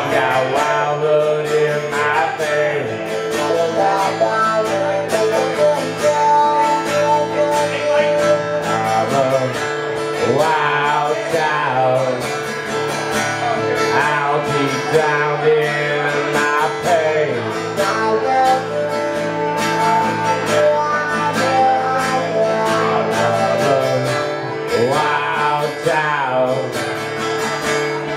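Live acoustic duo: two acoustic guitars strummed and picked in a steady rhythm, with a man singing over them.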